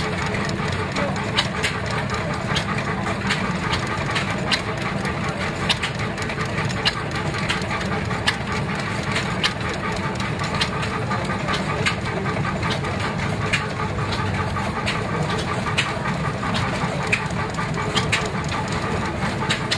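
Lanz Locomobil portable steam engine running steadily while driving an electric generator by a flat belt from its flywheel. A sharp tick recurs about once a second over the steady running.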